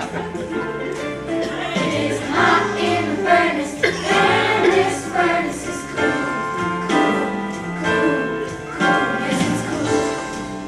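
A song: a group of voices singing over instrumental accompaniment with a repeating bass line.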